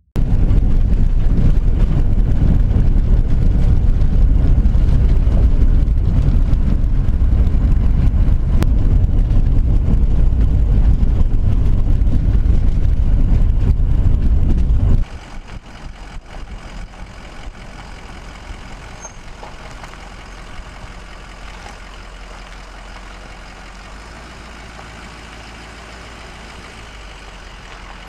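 Truck driving, heard from inside the cab: a loud, steady low rumble of road and engine noise. About halfway through it drops suddenly to a much quieter, steady engine idle.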